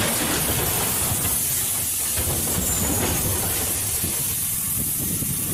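Rockslide: large boulders and rubble sliding and tumbling down a slope, a loud, steady rushing noise of grinding rock with a high hiss.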